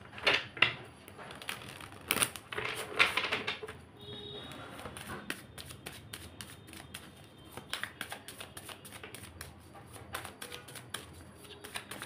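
A tarot deck being shuffled by hand, with the cards clicking and slipping against each other in quick succession. There are louder flurries in the first three seconds.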